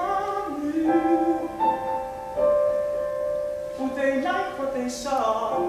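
Piano and cello accompaniment holding sustained notes, with a voice gliding over it at times near the start and again near the end.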